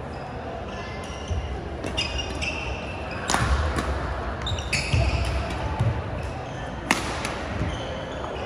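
Badminton doubles rally: rackets striking the shuttlecock with several sharp cracks, the loudest about three and a half and seven seconds in, and court shoes squeaking on the wooden floor between shots, over a background of voices.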